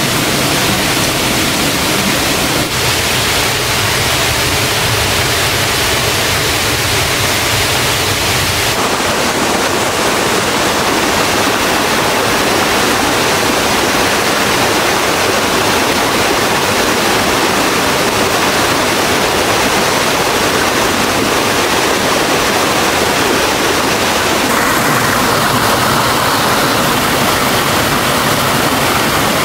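Waterfall and mountain stream water rushing loudly and steadily. Its tone shifts abruptly twice, about nine seconds in and near the end.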